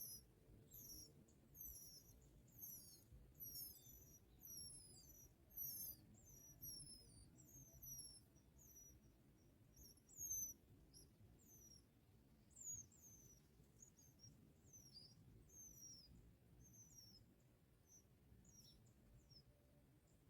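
Faint, high, thin bird chirps, each a quick downward slur, coming more than once a second at first and growing sparser in the second half.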